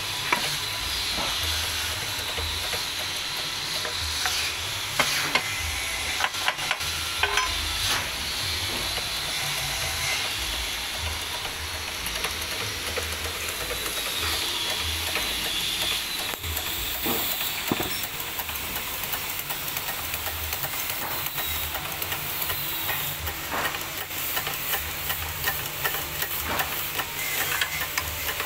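Clicks and knocks of metal on metal from a hand-pumped hydraulic jack and its lever, working a steel press that bends a steamed teak strip over a curved form. They come unevenly, bunched in a few spells, over a steady hiss.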